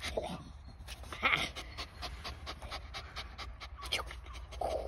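Young Staffordshire bull terrier panting quickly, several short breaths a second, with a louder short sound about a second in.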